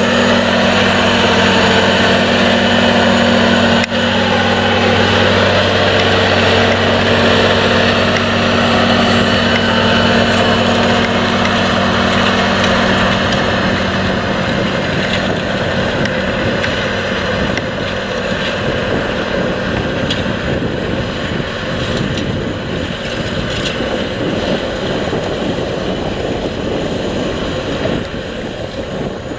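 Caterpillar Challenger MT865C rubber-track tractor's C18 six-cylinder diesel engine running under load while pulling a Lemken reversible plough through the soil. The steady engine drone is strongest in the first half, then gives way to a rougher, noisier rumble that slowly gets quieter.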